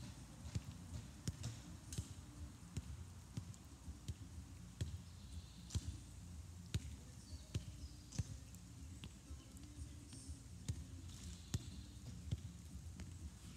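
Soccer ball being juggled: a run of light taps as the ball is kicked up off the foot, coming irregularly a little under a second apart.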